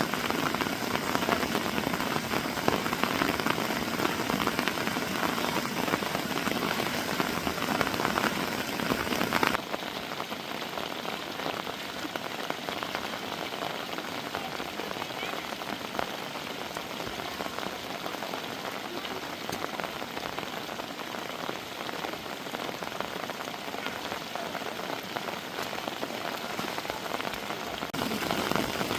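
Heavy rain falling in a steady, dense hiss of countless drops. It becomes suddenly quieter about a third of the way in and louder again near the end.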